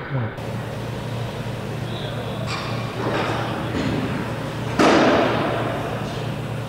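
Metal knocks and clanks from work on a steel jig's vertical strut, a couple of light ones and then a louder knock about five seconds in that rings briefly, over a steady low hum.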